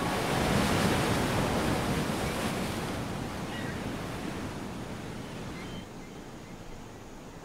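Sea waves crashing against cliffs, a steady surf wash that slowly fades away, with a few faint seabird calls in the middle.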